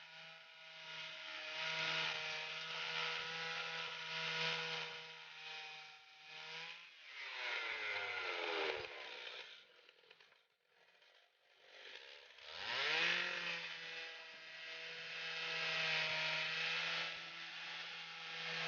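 Stihl 088 two-stroke chainsaw power head driving the sawmill's blade, running steady at high revs. About eight seconds in it winds down to almost nothing, then about four seconds later revs quickly back up to full speed.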